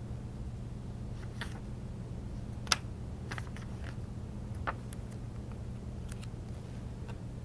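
Quiet room tone: a steady low hum with a few sharp clicks, the loudest about two and a half seconds in and another near five seconds in.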